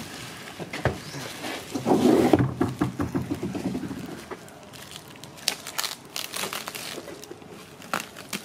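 Plastic wrap crinkling and crackling in short bursts as it is handled and pulled off a large raw carcass, with a brief voice about two seconds in.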